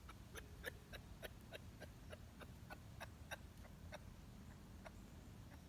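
Male kangaroo making faint, short clucking clicks, about three a second, at a female: a courtship call. The clicks thin out after about four seconds.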